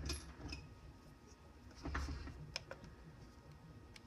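A few scattered clicks from a laptop being operated by hand, with a soft low thump about two seconds in.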